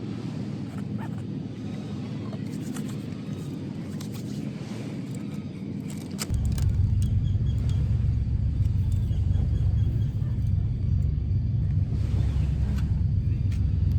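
Low, steady outdoor rumble of wind on the microphone. It jumps abruptly much louder about six seconds in and stays heavy.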